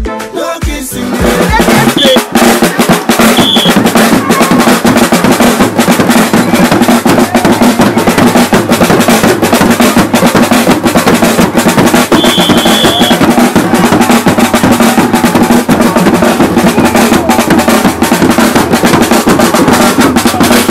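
Loud music of fast, dense drumming with snare-like rolls, taking over from an Afrobeat song about a second in.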